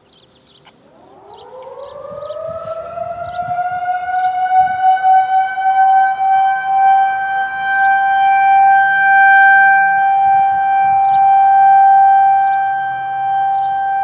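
Federal Signal 2001 outdoor warning siren starting up: its tone climbs quickly in pitch over the first few seconds, then holds as one loud, steady alert tone with strong overtones.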